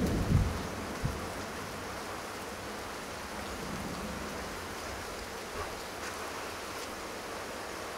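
Steady hiss of rain falling during a thunderstorm, with a couple of low thumps in the first second.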